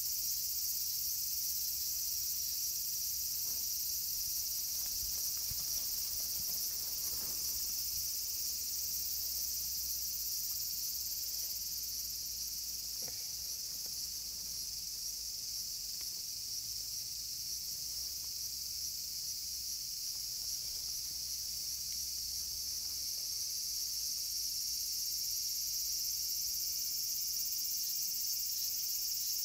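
Steady, high-pitched chorus of insects, a continuous shrill buzz that doesn't let up.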